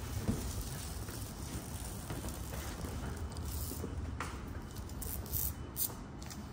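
Orange masking tape being peeled off a freshly painted textured wall, with a few sharper crinkles near the end as the strip is bunched up in gloved hands.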